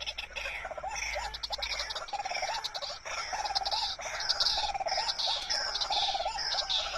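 White-breasted waterhen calls, a short harsh phrase repeated steadily over and over, roughly every two-thirds of a second.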